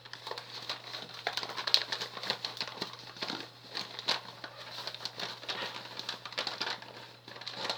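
Paper squishy crinkling and rustling in irregular small crackles as cotton is pushed into it a little at a time, over a low steady hum.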